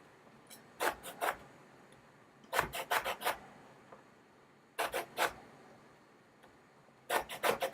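Orange peel being rubbed against a grater to take off the zest: quick rasping scrapes in four short bursts of a few strokes each, with pauses between.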